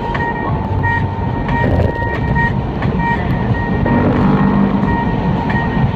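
Cabin sound of a 2015 Audi A4 Quattro's turbocharged four-cylinder engine and tyre noise under way on a wet race track, the engine note rising briefly about four seconds in. A high beeping tone repeats on and off throughout.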